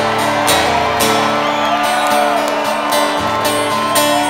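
Instrumental break in a song: guitar music with a steady beat.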